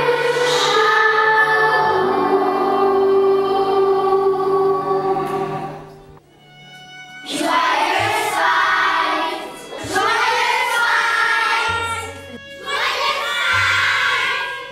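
Children's choir singing, holding a long final chord. After a short break about six seconds in, children's voices come in three short, loud phrases over soft sustained tones.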